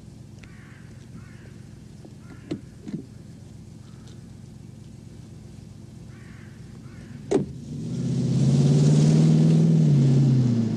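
Car engine idling, with a couple of light knocks about two and a half seconds in and a car door slamming shut around seven seconds in; the engine then revs up loudly as the car pulls away, its pitch rising and then falling, with road noise.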